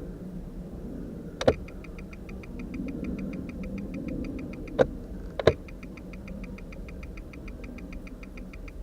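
2012 Nissan Rogue's turn-signal flasher ticking rapidly and evenly, about five ticks a second: hyperflash, the sign of failing turn-signal bulbs, here old and dim. A steady low hum runs underneath, and a few sharp, louder clicks stand out.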